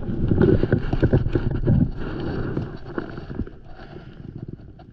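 Handling noise: close rubbing and knocking against the phone's microphone as rope is handled. Loudest in the first two seconds, then dying down.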